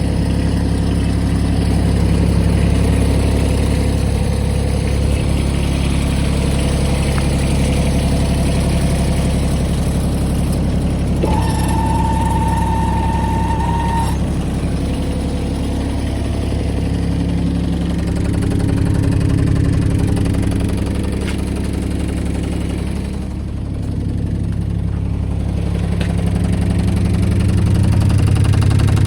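John Deere X495 ride-on lawnmower engine running steadily, its speed shifting up and down in the second half. A steady electronic beep sounds for about three seconds near the middle.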